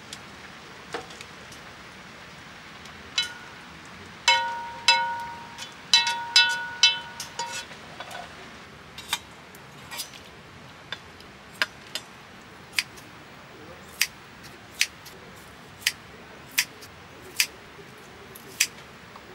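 Hard objects clinking: a handful of strikes with a short ringing tone, then single sharp ticks about once a second.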